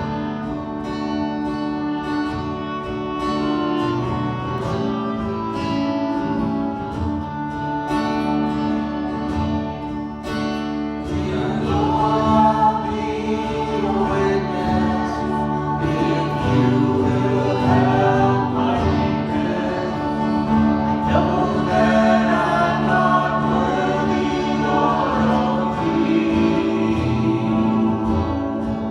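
Gospel worship music: held instrumental chords, then a group of voices begins singing about eleven seconds in and carries on over the accompaniment.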